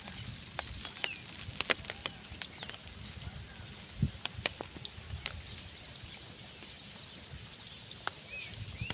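Outdoor rural ambience: scattered sharp clicks and taps over a low rumble, with a few short chirps about a second in and again near the end.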